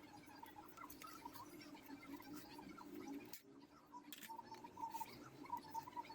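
Faint light clicks and scratching of a screwdriver and hands taking the metal cover off a car radio.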